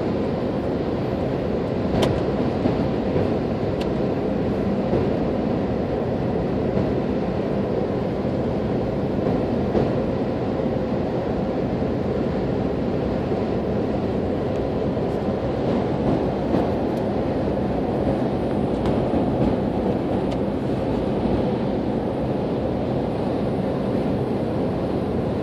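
Steady road and engine noise heard from inside a car cruising at constant speed on asphalt: an even rumble of tyres and engine that does not change, with a brief click about two seconds in.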